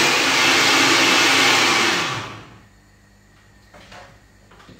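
Countertop blender running at full speed, puréeing tomatoes. It is switched off about two seconds in and the motor winds down, followed by a couple of faint knocks.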